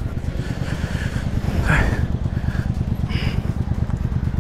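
Motorcycle engine idling with a steady low, pulsing rumble. A brief louder sound cuts in over it about a second and a half in.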